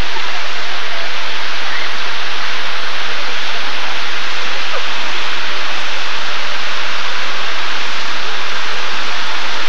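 Steady, loud rush of water running down a wide multi-lane water slide, with faint voices far off.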